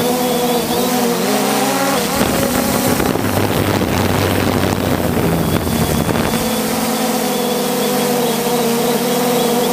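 3DR Solo quadcopter's electric motors and propellers running in flight, a steady multi-tone hum heard from the drone's own camera. From about two seconds in to about six seconds, wind noise on the microphone drowns the hum, which then returns.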